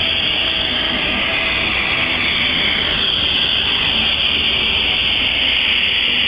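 Gas glassworking torch burning with a steady hiss.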